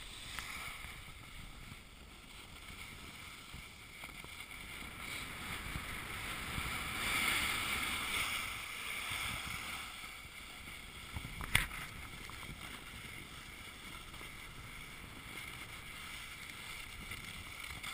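Snowboard sliding and carving down packed, groomed snow: a steady scraping hiss that grows louder a little before the middle, with wind rushing past. One sharp click about two-thirds of the way through.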